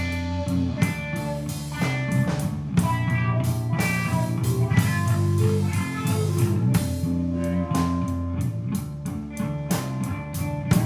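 A rock band playing an instrumental passage: electric guitar notes over bass guitar and a drum kit keeping a steady beat.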